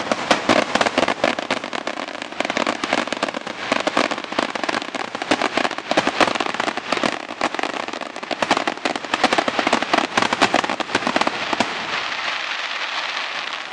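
Aerial fireworks bursting overhead with a dense, rapid crackle of many pops. Near the end the pops thin out into a fading hiss.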